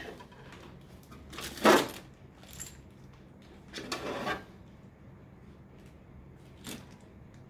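Handling noise from a clear plastic storage box: a few short clacks and rustles as its lid is lifted and pieces are taken out. The loudest comes about one and a half seconds in, another around four seconds.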